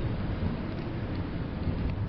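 Blizzard wind making a steady low rumble, with a few faint crackles from a wood fire.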